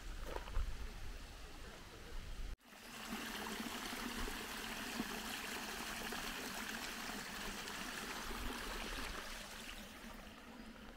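Small garden stream trickling steadily down its channel. It comes in after a sudden cut about two and a half seconds in; before that there is a low rumble and a few faint knocks.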